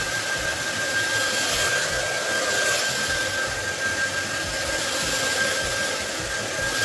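Handheld hair dryer running steadily on its hot setting: an even rush of air with a thin, steady high motor whine, quickly drying wet short hair.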